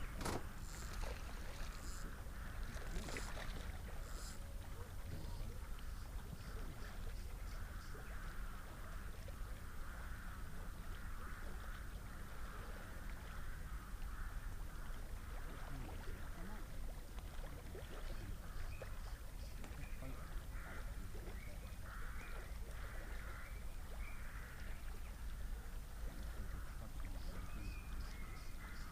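Outdoor ambience: a steady low wind rumble on the microphone under a faint, shifting hiss, with a few light clicks in the first few seconds.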